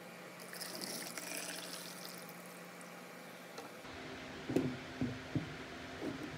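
White vinegar poured from a plastic gallon jug into a plastic tub over a rusty 4 lb sledgehammer head, filling it for a rust-removing soak: a splashing trickle of about three seconds. Then four dull knocks as the steel hammer head is set down and turned over on a wooden tabletop, the first the loudest.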